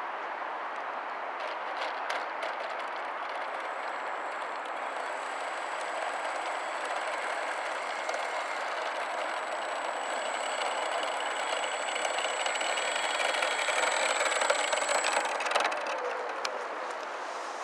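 Electric motor and spinning propeller of a HobbyKing Pietenpol Air Camper radio-controlled model plane taxiing on asphalt: a steady whir with a thin high whine, growing louder as the plane comes closer. Near the end the throttle is cut and the motor winds down with a short falling tone.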